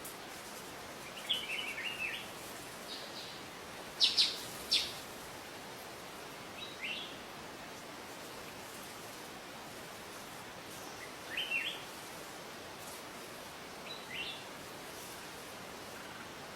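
Wild bird calling: short high chirps and brief twittering phrases every few seconds, the loudest a quick cluster of sharp notes about four seconds in, over a steady background hiss.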